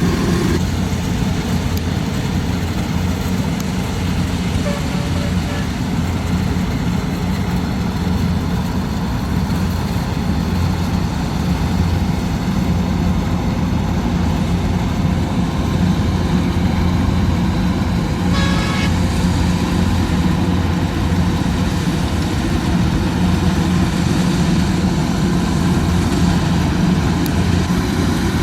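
Heavy engine of a rice combine harvester running steadily under load, with a low even drone. A brief higher-pitched toot sounds about two-thirds of the way through.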